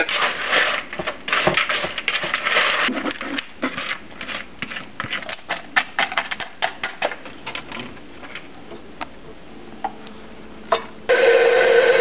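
Crushed pretzels being stirred and scraped in a bowl, then crumbs spread by hand in a foil pan, with many light clicks and crinkles. About eleven seconds in, a KitchenAid Professional HD stand mixer starts up and runs with a steady, loud motor whine.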